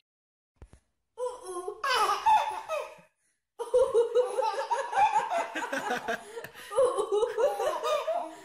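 Baby laughing in repeated high-pitched fits, starting about a second in, with a short pause near the three-second mark.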